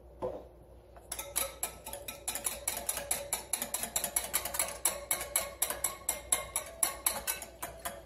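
Wire whisk beating a chia-seed and almond-milk mixture in a glass bowl, its wires clicking against the glass in a fast, even rhythm of about five or six strokes a second, starting about a second in.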